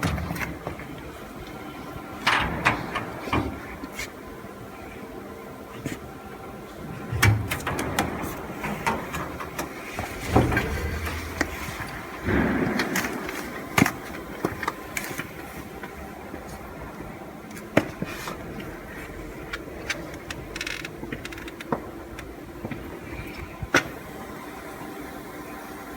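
Wood CNC router running, a steady machine hum with a few held tones, broken by frequent sharp knocks and short bursts of clatter that are busiest in the first half.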